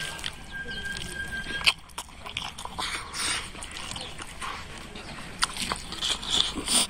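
Mukbang eating sounds: fingers scooping rice on a plate, with chewing, lip smacks and short sharp clicks. A thin, steady high whine runs through the first second and a half or so and then stops.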